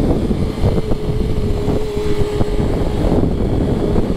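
BMW S1000RR inline-four motorcycle engine cruising at a steady speed with a steady engine note, heard under wind noise on the rider's microphone.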